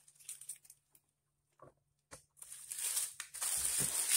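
Dry corn husks crinkling and rustling as a husk-wrapped block of cane-sugar dulce (panela) is handled and unwrapped. It is mostly quiet with a few faint knocks at first; the crinkling starts about halfway through and keeps on irregularly.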